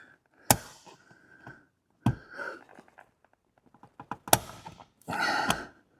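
Sharp knocks and small clicks of a tool working a stubborn plastic push pin (Christmas-tree fastener) out of a truck seat cushion, with a short scraping rustle near the end.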